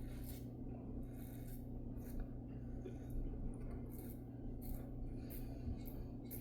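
Safety razor with an Albatross blade scraping through lathered stubble in short repeated strokes, about one or two a second, over a steady low hum.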